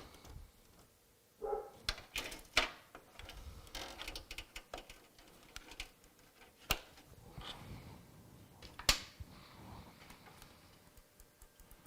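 Scattered sharp clicks and rustling from hands working a PC's cable connectors and power switch. The computer does not start, and no fan is heard spinning up.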